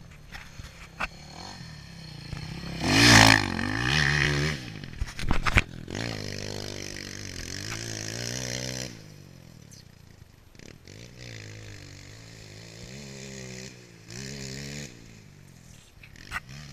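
Dirt bike engine revving on a motocross track, its pitch climbing and dropping again and again with throttle and gear changes. A loud burst of rushing, scraping noise breaks in about three seconds in, and the engine runs quieter after about nine seconds.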